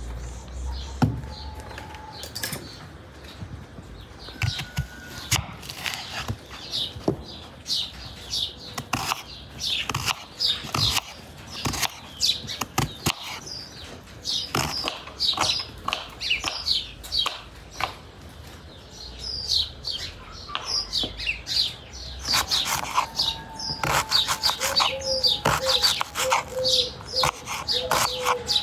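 Small kitchen knife cutting a red onion on a wooden cutting board: sharp taps of the blade against the board, quickening into rapid chopping over the last few seconds. Birds chirp throughout.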